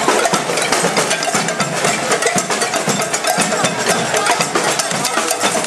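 Protest percussion: drums and sharp wood-block-like strikes played in a dense, rapid stream over the steady din of a marching demonstration crowd.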